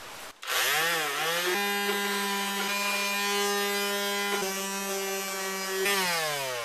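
Corded electric sander switched on with a wavering rise in pitch, running steadily, then switched off and winding down with falling pitch near the end; it is being used to smooth the rough jigsaw-cut edge of a hole in a wooden tabletop.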